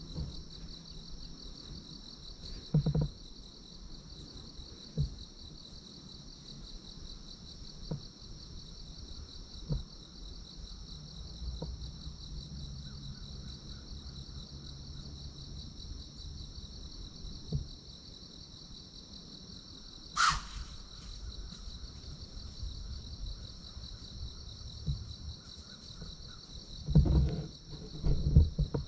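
Steady chorus of insects shrilling in a high, finely pulsing band. A single short, sharp sound cuts across it about two-thirds through, and a few soft low knocks come near the start and the end.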